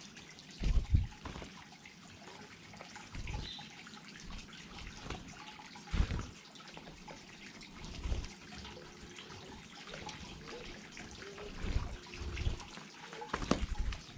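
Water of a small garden cascade trickling and splashing steadily, with several short, loud low thumps scattered through.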